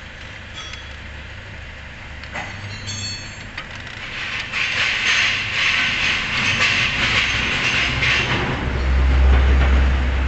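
Metal clicking and rattling of a socket wrench on the crankshaft pulley bolt of a Mitsubishi Pajero Sport/Strada Triton, as the already-loosened bolt is turned out. A few light clicks come first, then a dense run of rapid clicking for a few seconds, and a low rumble swells up near the end.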